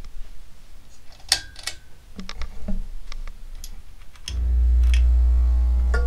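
Evergo "Banana Fan" ceiling fan motor: a few light clicks and ticks, then about four seconds in a loud, steady motor hum comes in abruptly with a stack of overtones. The hum is typical of this unusually noisy fan.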